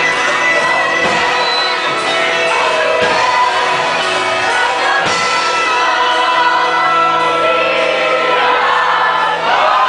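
A worship song: voices singing over instrumental backing, with occasional drum hits.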